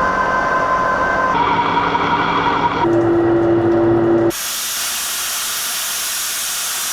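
Series of held, horn-like tones that switch pitch abruptly every second and a half or so, cut over at about four seconds to a steady high hiss.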